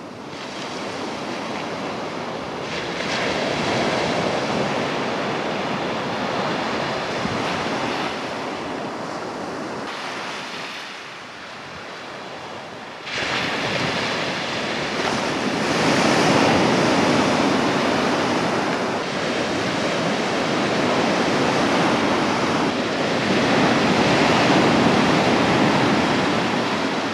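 Sea waves washing in and out on a shingle beach, swelling and ebbing, with a sudden step up about halfway through to louder surf breaking and crashing.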